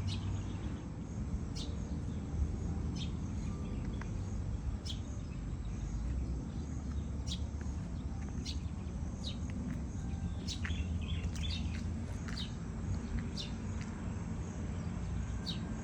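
Birds chirping: short, high, downward chirps about once a second over a steady low rumble of outdoor background noise.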